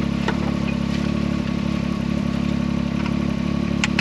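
Can-Am Maverick X3 side-by-side's turbocharged three-cylinder engine running at a steady speed with an even hum. A couple of sharp clicks sound over it, one near the start and one near the end.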